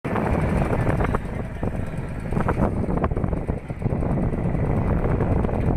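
Wind buffeting the microphone, a heavy low rumble over a busy outdoor background.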